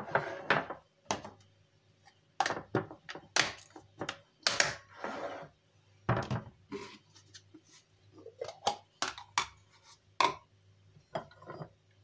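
Glass and ceramic dishes handled on a kitchen countertop: a quick run of knocks, clinks and scrapes as they are set down and moved and the lid comes off a ceramic bowl. A faint steady low hum runs underneath.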